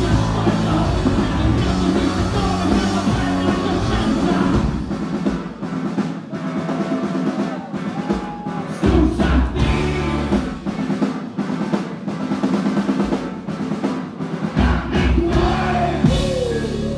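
Live indie rock band playing loudly: drums, electric guitars and bass. About five seconds in the heavy low end drops away, leaving mostly drum hits over a thinner sound. The full band comes back in near the end.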